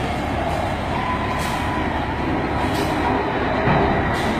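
A tractor-trailer braking to a stop on a wet highway amid heavy traffic noise: a steady rumble with a faint, high, held brake squeal and a few short hisses.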